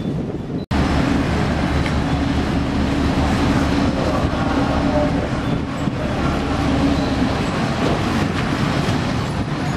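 Boat engine running steadily close by, a low rumble with a steady hum. It starts abruptly less than a second in, after a brief dropout.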